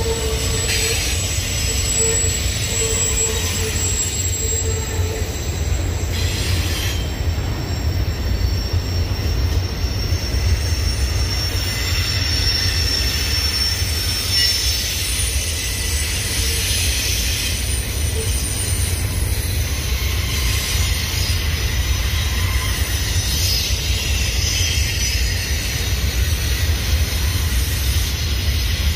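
Union Pacific double-stack intermodal freight cars rolling steadily past, a continuous low rumble with high-pitched wheel squeal coming and going.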